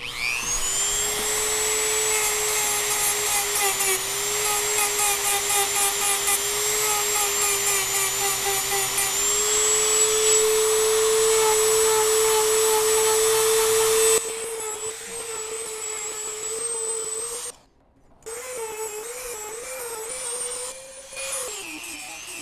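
Dremel 3000 rotary tool with a 100-grit sanding drum spinning up and grinding old epoxy repairs and gelcoat out of a fiberglass hull. A steady high-pitched whine whose pitch dips as the drum bites, quieter from about two-thirds through, with a brief cut-out, then wavering under load and falling near the end.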